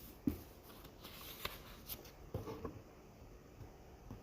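Faint handling noises: a few soft taps and light rustles of playing or tarot cards being handled, scattered through a quiet pause.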